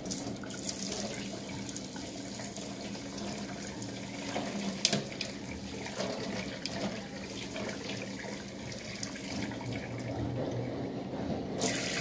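Hot water poured from a saucepan onto a block of ice in a stainless steel sink, splashing and trickling, with a sharp clink about five seconds in. Near the end the kitchen tap is turned back on and its spray runs into the sink.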